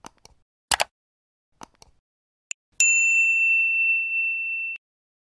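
Sound effects of a subscribe-button animation: several short mouse clicks, then a single notification-bell ding about three seconds in that rings steadily for about two seconds and cuts off.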